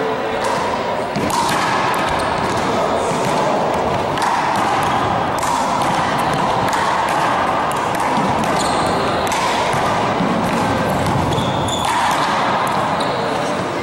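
A handball rally: the small rubber ball is struck by gloved hands and smacks against the front wall and the wooden gym floor, many sharp hits in an irregular rhythm.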